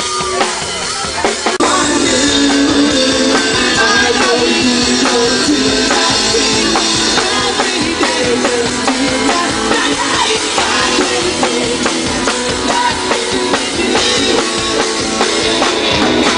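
Live rock band playing with a steady drum-kit beat, the whole band coming in fuller and louder about a second and a half in.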